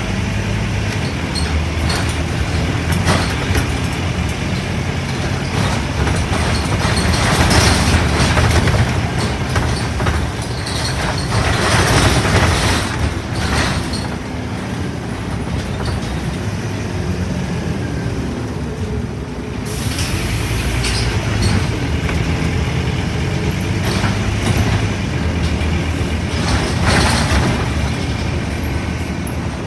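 2009 Scania N230UD double-decker bus, heard from inside: its five-cylinder diesel engine running under way with road noise, the engine note rising and falling through the gears. A few bursts of hiss break in, the loudest about seven and twelve seconds in.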